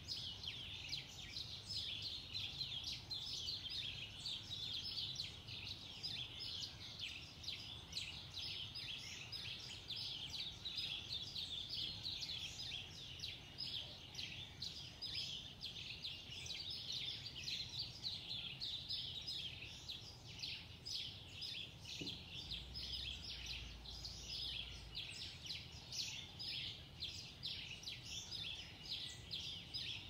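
Dawn chorus: many birds singing at once, a dense, unbroken chatter of high-pitched chirps and trills.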